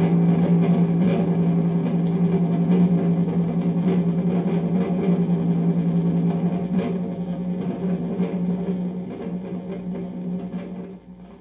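Eggs boiling in a pot, picked up by a contact mic and played through a Marshall guitar amplifier: a steady, distorted hum with irregular rattling knocks, fading out near the end.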